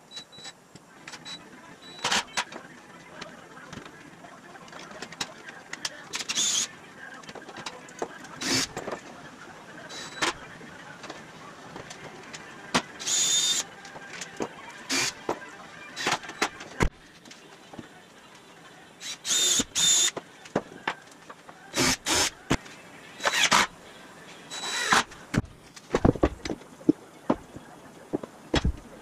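Cordless drill driving screws into OSB panels in a series of short whining bursts, each about half a second to a second long, with clicks and knocks of wood and tools being handled between them.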